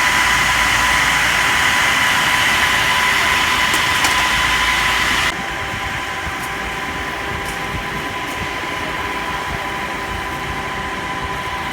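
Fire engine's motor and water pump running steadily, with a constant whine over the engine noise. About five seconds in the sound abruptly becomes quieter and duller.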